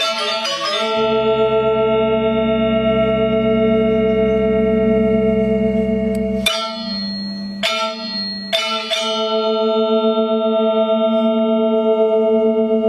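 Balinese gamelan metallophones (gangsa) playing a tabuh kreasi piece, holding long ringing chords with a pulsing beat in the tone. A deep low tone sounds under the first half and is cut off about six and a half seconds in. Then three sharp unison strikes about a second apart lead into another long ringing chord.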